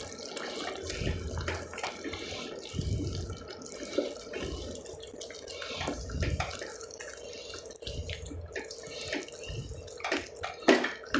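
A wooden spatula stirring thick, saucy curry in a non-stick pan: irregular wet sloshing and squelching, with light ticks and knocks of the spatula against the pan.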